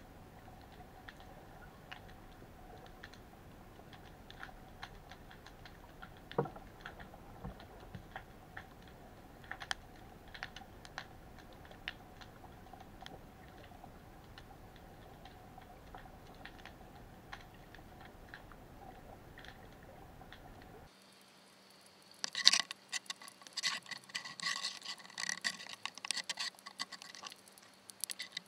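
Underwater sound picked up by a camera submerged on a crab pot: scattered faint clicks and crackles over a steady hum, then, about three-quarters of the way in, a burst of rapid, louder clicking and scratching as a spider crab clambers onto the pot.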